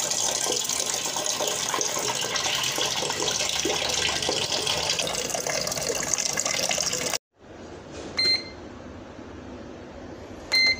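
Tap water pouring and splashing into a stainless steel pot for about seven seconds, then stopping. Near the end, two short electronic beeps from a Golden Well electric cooker's control panel as its buttons are pressed.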